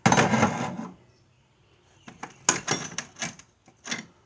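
Metal hand tools being handled in an old Craftsman steel toolbox: a loud scraping rattle for about a second at the start, then a handful of sharp metal clinks.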